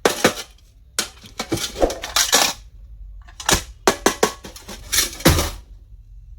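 Plastic stationery items being handled: a string of clicks, knocks and short rustling scrapes, with brief pauses between them.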